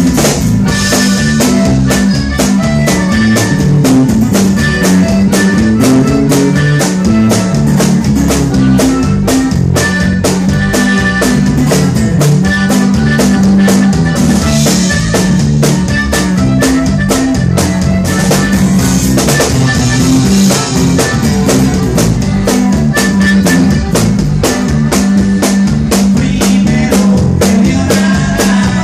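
Loud live band music: a drum kit keeping a steady beat with rimshots, over a moving bass line and guitars.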